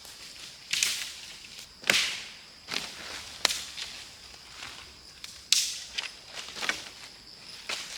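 A series of sharp cracks or whacks, about eight of them at uneven intervals, each sudden and bright with a short swishing tail.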